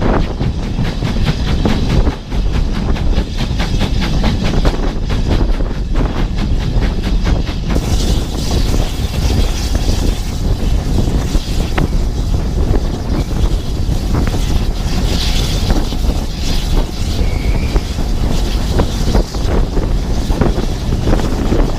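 Steam-hauled passenger train running along the line, heard from outside a carriage window, with heavy wind buffeting the microphone. A fast regular pulsing runs through the first several seconds, then gives way to steadier rushing noise.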